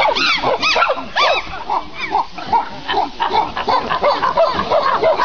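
A crowd of animals calling all at once: many short calls, each rising and falling in pitch, overlapping in a dense, loud chorus.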